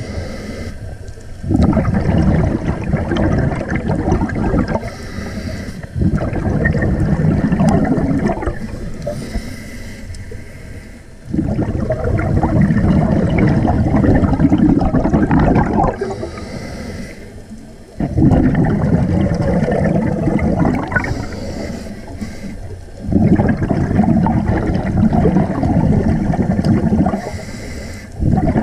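Scuba diver breathing through a regulator underwater: five breaths, each a loud bubbling exhale of three to four seconds followed by a shorter, quieter inhale with a faint hiss.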